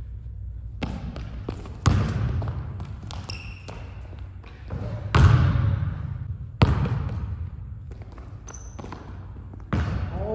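A basketball bouncing and striking on a hardwood gym floor: a handful of separate thuds that echo through the hall, the loudest about five and six and a half seconds in, with a couple of short high squeaks between.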